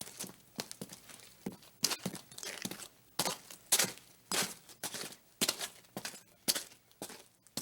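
Footsteps walking at a steady pace on a crunchy surface, about two steps a second, each step a short crunch.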